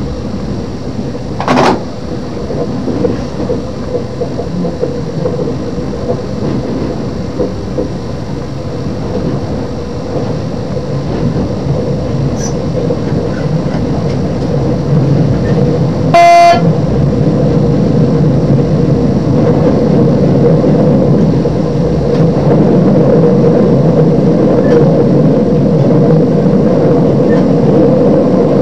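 Class 628 diesel multiple unit running on the line, heard from the cab: steady engine and wheel-on-rail noise that grows gradually louder. A little past halfway the train's horn gives one short, single-tone toot.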